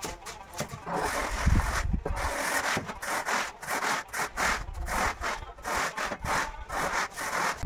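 A hand tool scraped back and forth over a sand-and-cement floor screed in quick, regular strokes, about two to three a second.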